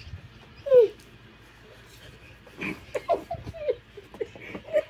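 Children's short whimpering cries and squeals during play-wrestling: one loud falling cry just before a second in, then a run of short cries about halfway through.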